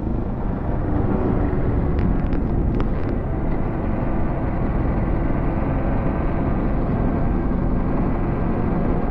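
Motorcycle engine running steadily at cruising speed, mixed with wind rushing over the camera microphone.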